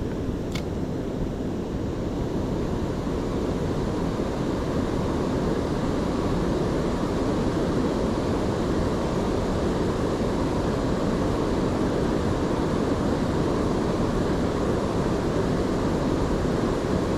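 Water rushing over a river dam: a steady, even rush of falling water, with one faint tick less than a second in.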